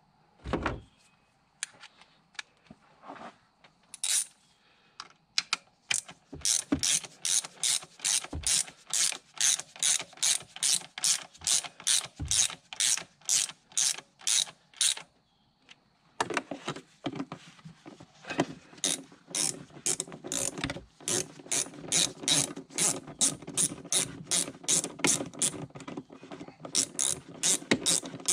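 Hand ratchet wrench clicking in quick, even strokes, about three clicks a second, with a short pause about halfway before the clicking resumes. A few scattered tool knocks come first.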